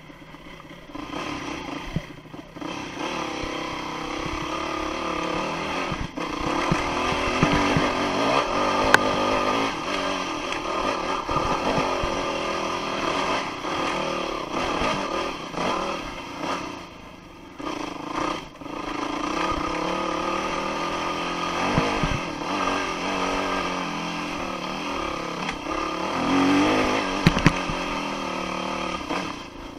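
Dirt bike engine being ridden hard, revving up and down as the throttle is opened and chopped, with a few brief drops off the throttle and occasional sharp knocks from the bike.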